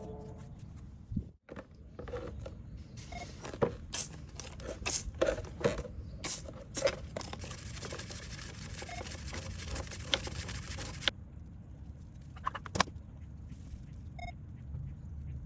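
Irregular clicks, knocks and scraping of parts being handled, then a steady hiss of about three seconds that starts and stops abruptly.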